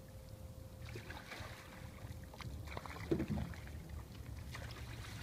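Paddle strokes dipping and splashing in calm pond water beside a small boat, over a low wind rumble on the microphone; one louder splash about three seconds in.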